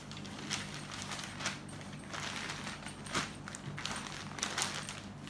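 Cotton Kalamkari saree being handled and folded on a tabletop: repeated rustles and swishes of the cloth, a few sharper ones, over a steady low hum.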